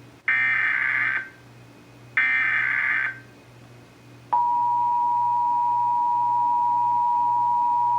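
Emergency Alert System SAME header: two short bursts of buzzy data tones, each about a second long, the last two of the three header bursts that open an alert, here a Required Monthly Test. About four seconds in, the steady two-tone EAS attention signal starts and holds.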